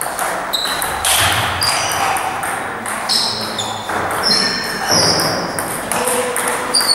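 Table tennis ball being struck by rubber-faced paddles and bouncing on the table during a rally, a series of sharp clicks, with short high squeaks from the players' shoes on the sports-hall floor.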